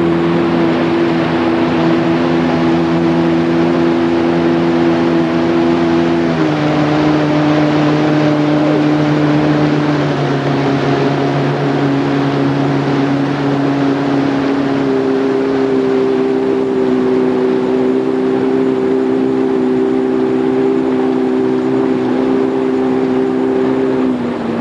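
Motorboat engine running at steady towing speed over the rush of wake water and wind. Its note shifts a couple of times, then falls away near the end as the throttle is eased off.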